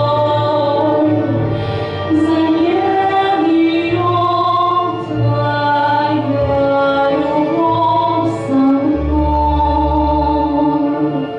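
A woman singing a slow song in long held notes over a backing track with a bass line.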